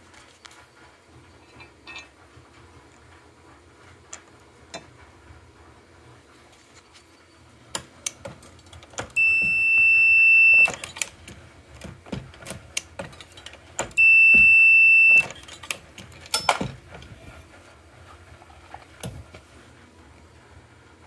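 Dillon XL650 progressive reloading press being worked by hand: metallic clicks and clunks from the shellplate and linkage. Two steady high electronic beeps sound among them, the first about 9 seconds in lasting about a second and a half, the second about 14 seconds in lasting about a second; the beeps are the loudest sounds.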